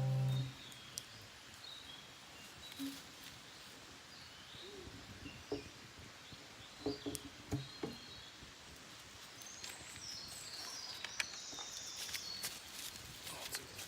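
Wild birds chirping and calling in woodland, with scattered sharp crackles and pops from a wood fire.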